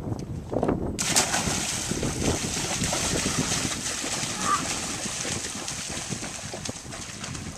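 Splashing of feet running through shallow water, a dense hissing spray of irregular splashes that starts suddenly about a second in.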